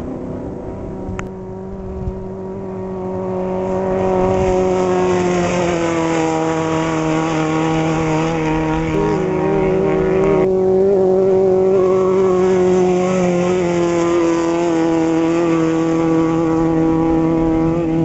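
Off-road race vehicle engine running hard at speed, a steady droning note that grows louder about four seconds in and then holds.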